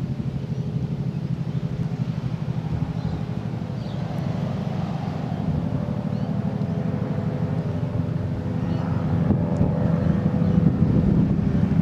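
Aérospatiale AS355 F1 Twin Squirrel twin-turbine helicopter in flight, its rotor beating in a rapid steady pulse over a steady engine tone, growing louder in the last few seconds as it comes closer.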